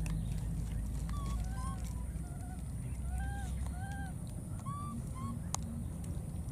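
Baby macaque crying in a series of about eight short, high calls, each rising and falling in pitch, over a steady low background rumble.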